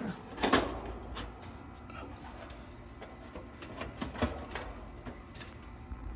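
Sheet-metal access panel of a Carrier AC condenser being fitted back into place by hand: a few scattered metal clacks and knocks, the loudest about half a second in and another pair about four seconds in.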